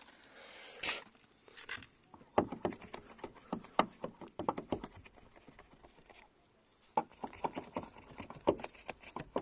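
A bar of solid soap rubbed hard against a car door's metal check strap to lubricate it against squeaking, giving runs of quick, irregular scraping clicks with a short pause in the middle.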